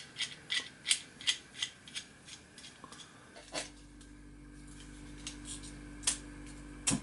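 Rapid light metallic ticking, about three ticks a second, fading and slowing away over the first three seconds: the hot copper boiler ticking as it cools after soldering. Then a steady low hum with a couple of sharp clicks near the end.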